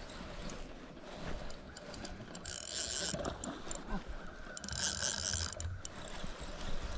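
Fishing reel whirring with a mechanical clicking, in two short spells about two and a half and four and a half seconds in.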